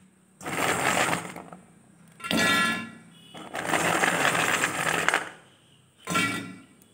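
Crisp fried chana dal pieces dropped into a stainless-steel mixer-grinder jar, rattling and clinking against the metal in four bursts, the third the longest.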